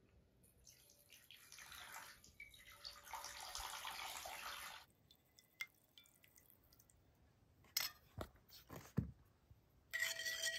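Water poured from an enamel kettle into a ceramic bowl for about four seconds, followed by a few light knocks, and near the end a spoon stirring the water and ringing against the bowl.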